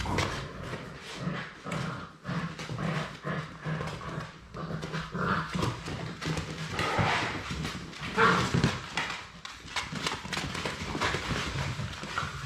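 Labrador Retriever puppies playing and scuffling on a wooden floor, their claws and paws making many quick clicks and taps, with a few brief puppy whines, the loudest about eight seconds in.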